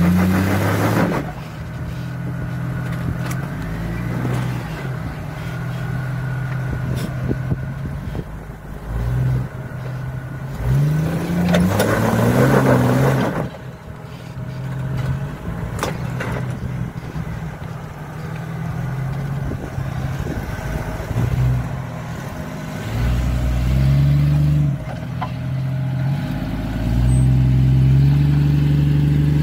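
Lifted Jeep Cherokee XJ's engine revving in surges as it crawls up a rocky step, with a louder burst of revs and wheelspin on loose rock about halfway through.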